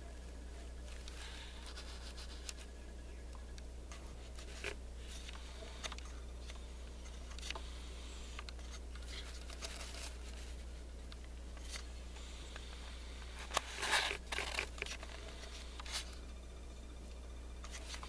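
Steady low hum with scattered faint clicks and scratches. A short run of louder scraping clicks comes about two-thirds of the way through.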